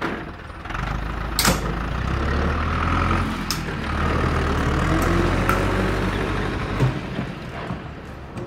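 A heavy vehicle engine idling with a steady low rumble, broken by a few short sharp clicks, the loudest about a second and a half in; the rumble stops near the end.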